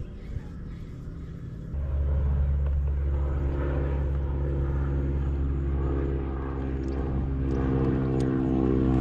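A steady engine hum starts abruptly about two seconds in and grows louder toward the end.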